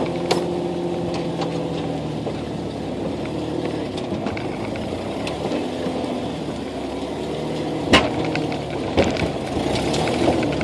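Jeep Wrangler engine running at low revs, its pitch shifting as it crawls over rock. Scattered knocks and clicks, with one sharp bang about eight seconds in.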